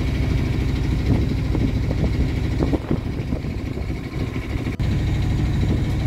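Diesel inboard engine of a hired day boat running steadily under way at slow cruising speed, a low even rumble.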